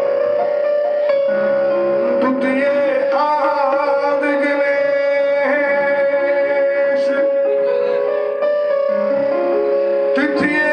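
Live devotional music: a melody played in long, steady held notes that step from pitch to pitch.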